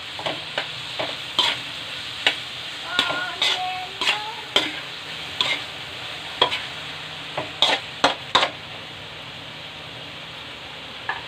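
Gizzards frying in hot oil in a wok, sizzling steadily while a spatula stirs them with irregular scrapes and knocks against the pan. The stirring stops about three-quarters of the way through, leaving only the sizzle.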